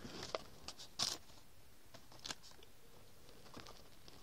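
Faint crinkling and clicking of plastic blister packs on cardboard cards being handled, with a few short sharp crackles, the loudest about a second in and another just past two seconds.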